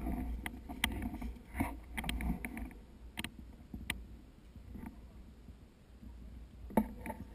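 Low rumble of wind on the microphone, with a few scattered sharp clicks and knocks at irregular intervals; the loudest knock comes near the end.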